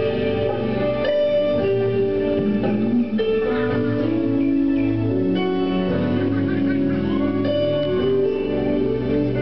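Recorded dance music played over a sound system, with held notes and chords and guitar-like plucked strings.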